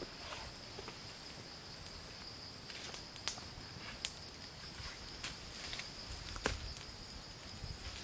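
Night insects such as crickets chirring steadily at two high pitches, with a few sharp snaps standing out over it.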